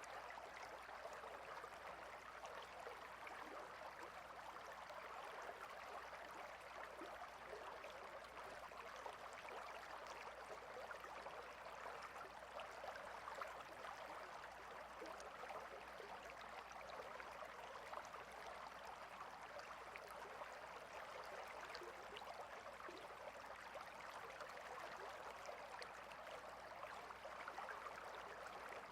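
River water flowing: a faint, steady rush of running water that does not change.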